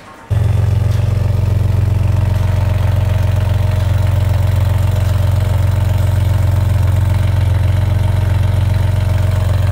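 BMW M4 G82's twin-turbo inline-six idling steadily through its newly fitted aftermarket exhaust, with a deep, even note. It comes in abruptly just after the start and holds steady without revs.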